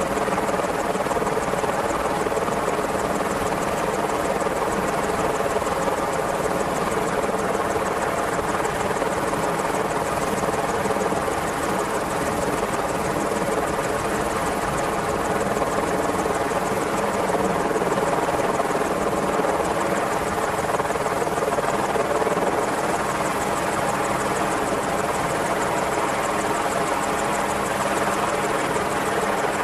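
Merlin helicopter running steadily, the sound of its rotors and turbine engines holding level and unchanging throughout.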